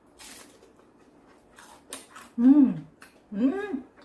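Eating sounds with a few brief crisp crunches, then two short hums from a woman's voice, each rising and falling in pitch.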